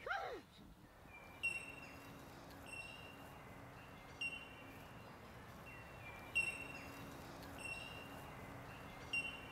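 A bird calling over and over, one short high whistled note every second or so, above a faint steady low hum.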